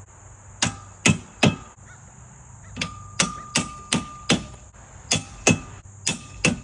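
Hammer tapping parts of an aluminum railing into place: about a dozen sharp strikes in short groups, several leaving a brief metallic ring.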